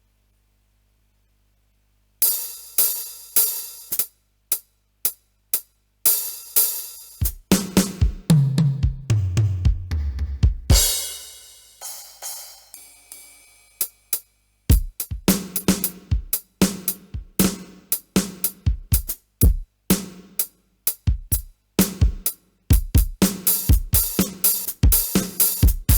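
Yamaha DD-75 digital drum pad played through its direct output. About two seconds in, cymbal and hi-hat hits ring out, then a fill runs down the toms, falling in pitch. From the middle on, a beat of kick drum, snare and hi-hat plays.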